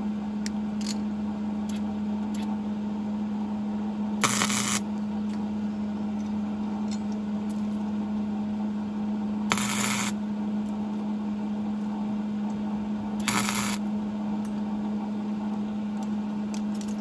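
Flux-core wire welder (Hobart Handler 125) striking three short tack welds on square cut nails, each a crackling arc of about half a second, over a steady low hum.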